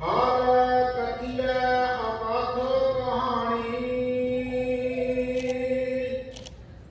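Sikh hymn singing (Gurbani kirtan): one chanted phrase of long held notes at a steady pitch with a few bends, fading out about six seconds in.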